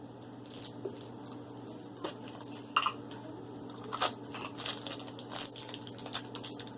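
Plastic blind-bag packaging of a Shopkins mystery toy being torn and crinkled open by hand, in scattered short crackles and clicks that come more often in the second half.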